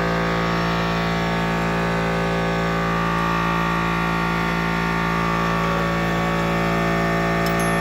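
Air compressor motor running with a steady, unchanging hum, with a few faint clicks near the end.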